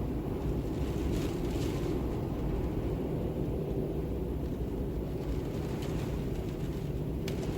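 Steady, low wind rumble in an ambience soundscape, with a few faint ticks scattered through it.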